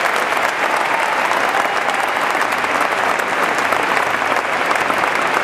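Audience applauding, a dense, steady clapping with no break.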